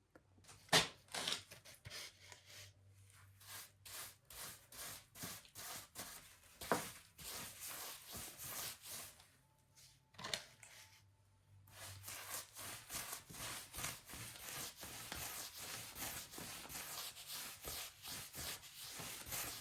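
Quick, scratchy rubbing strokes as a watered-down solution is applied to a small patch of wall, with a short lull about halfway through.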